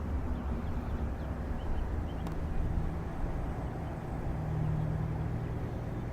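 Steady low engine rumble with a faint hum.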